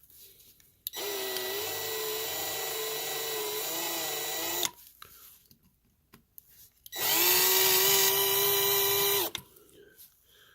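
Small power drill running in two bursts, about four seconds and then about two seconds, drilling out the rear rivets of a die-cast toy car's baseplate. Its pitch wavers as the bit bites in the first run and holds steady in the second.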